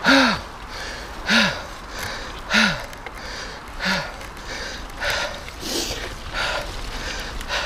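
A man panting hard from the exertion of a steep uphill climb on a mountain bike: heavy breaths about one every second and a bit, the first four with a short voiced gasp, then softer and quieter.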